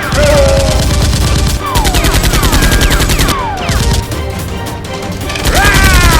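Several long bursts of rapid automatic gunfire with short breaks between them, over background music, with falling whistling tones running through it.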